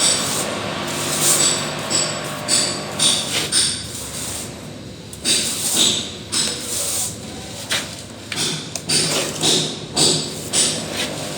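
Irregular sharp metallic taps and clinks of hand tools, one or two a second with short pauses, each with a bright ringing tone, over a steady low hum.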